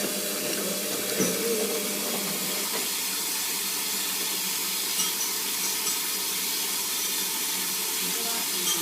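Whirlpool AWOD 5726 front-loading washing machine taking in water: a steady hiss of water running into the machine, with a few faint clicks.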